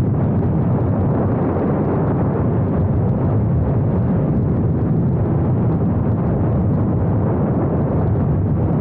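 Triumph Scrambler 900's parallel-twin engine running at a steady cruise, a constant low rumble, with wind rushing over the microphone.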